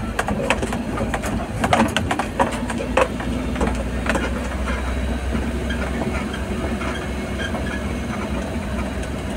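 Vehicle engine running steadily as it climbs a steep dirt road, heard from inside the cab. There are sharp knocks and rattles during the first four seconds as it jolts over the rutted ground.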